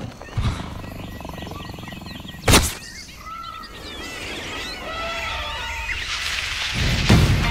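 Jungle ambience from a music video's intro soundtrack: many birds chirping and calling in short sliding notes, with a sharp knock about two and a half seconds in. Louder sound swells in near the end as the music begins.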